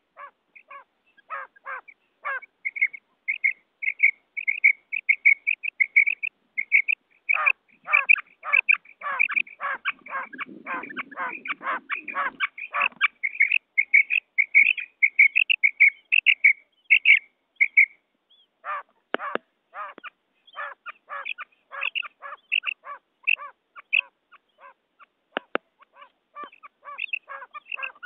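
Female quail (batair) calling from a recording: long runs of short, sharp notes repeated about three times a second, with brief pauses between runs. It is a lure call, played to draw male quail in.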